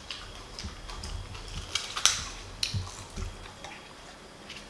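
A person chewing raw green onion with chili paste close to the microphone: irregular crisp crunches and mouth clicks, the sharpest about two seconds in.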